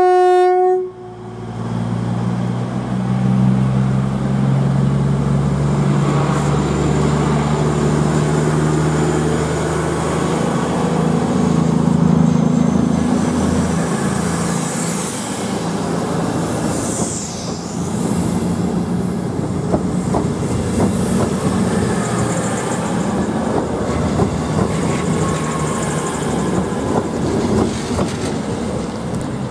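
A train sounds one short horn blast, then runs by with a steady low drone. Its wheels clatter over rail joints from about halfway through.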